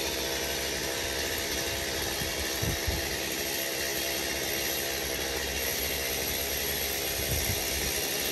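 Chainsaw engine running steadily at an even speed, without revving.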